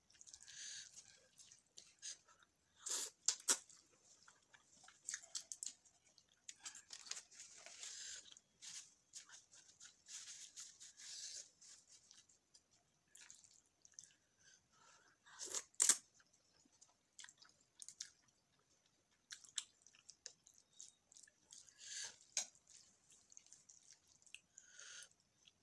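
Close-miked eating of spicy Buldak fried noodles: irregular wet chewing and mouth noises, with a few sharp clicks of wooden chopsticks against a ceramic bowl, the loudest about three and sixteen seconds in.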